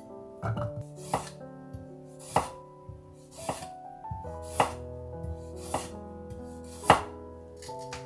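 Kitchen knife chopping through ginger onto a wooden cutting board: a sharp knock about once a second, the loudest one near the end, over background music.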